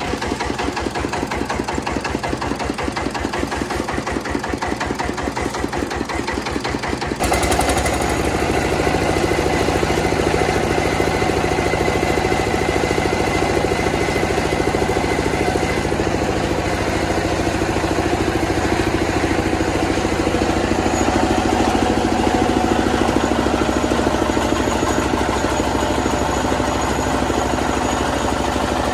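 Engine-driven rice milling machine running: an even, rhythmic chugging that turns abruptly louder and steadier about seven seconds in.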